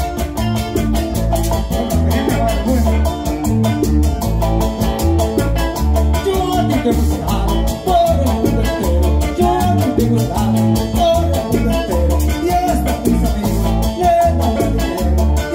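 Live Latin band playing a salsa-style number on guitars, bass guitar, congas and keyboard, with a lead singer at the microphone over a steady beat.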